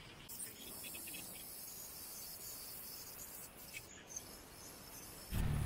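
Insects droning outdoors in a steady high-pitched buzz that stops about four seconds in. Near the end a sudden loud low rumble of wind buffeting the microphone cuts in, from the ride.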